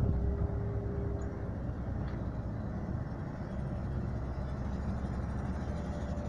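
Diesel engines of a Tatra 815 dump truck driving in and a Komatsu PW 140 wheeled excavator at work, a steady low rumble.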